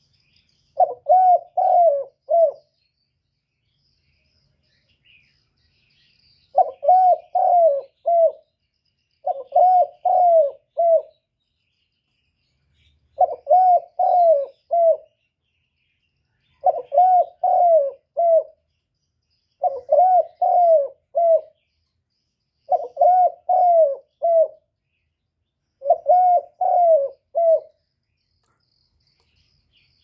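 Spotted dove cooing in repeated phrases, each a run of about four rising-and-falling coos. There are eight phrases, spaced about every three seconds after a longer pause near the start. It is the 'kích bổi' call that trappers play to rouse decoy doves.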